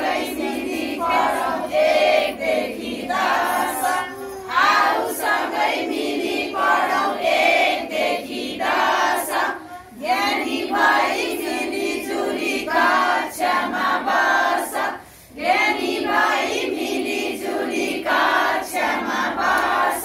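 A group of women singing a children's action song together, in phrases of about five seconds with short breaks between them.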